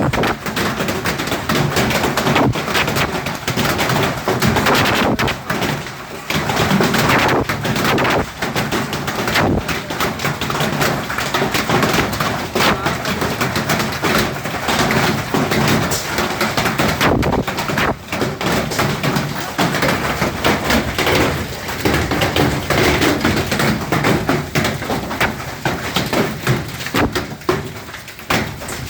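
Heavy hail falling, hailstones striking in a dense, loud, continuous clatter of rapid impacts.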